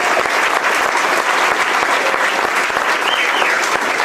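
Audience applauding after a song: many hands clapping at a steady level, with a short whistle from the crowd about three seconds in.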